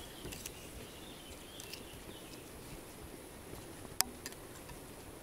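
Quiet open-air ambience with a fly buzzing faintly and small clicks from fishing tackle being handled, the sharpest click about four seconds in.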